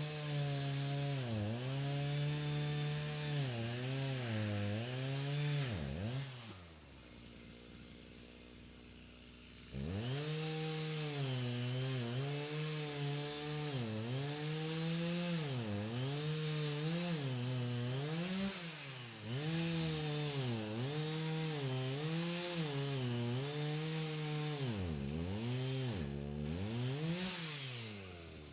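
Chainsaw heard from a distance, revving and cutting wood, its engine pitch dipping and recovering again and again as the chain bites into the cut. After about six seconds it falls back to a low idle for about three seconds, then revs up and cuts again before winding down near the end.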